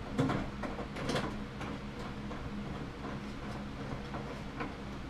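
Mounting bolts being started by hand through the cabinet into the top of an over-the-range microwave: a few light clicks and knocks in the first second or so, then faint ticks, over a steady low hum.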